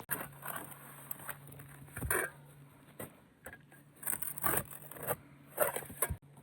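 A handful of short, irregular scraping sounds like a zip being pulled, the longest about four to four and a half seconds in, over a faint steady low hum.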